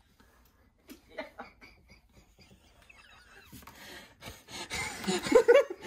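Men laughing: faint stifled snickers at first, breaking into loud laughter over the last couple of seconds.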